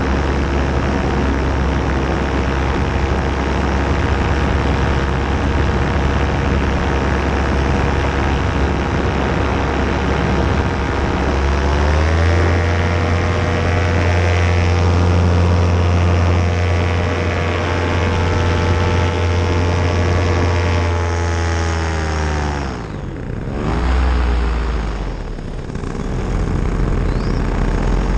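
Paramotor engine and propeller running in flight. The pitch rises as the throttle is opened partway through and is held, then drops as the throttle comes off. A quick throttle blip follows before the engine picks back up near the end.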